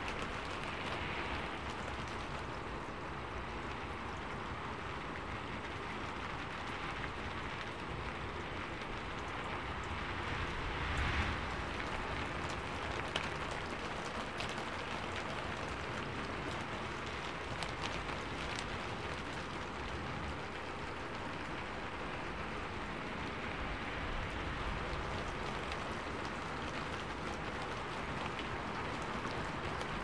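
Steady rainfall, a continuous even hiss of drops with a few sharper individual drop ticks, swelling briefly about eleven seconds in.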